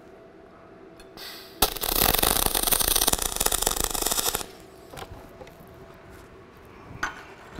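MIG welding arc from a spool gun on thin aluminum: a dense, even crackle for about three seconds that stops abruptly. The bead ran hot and blew out at its end.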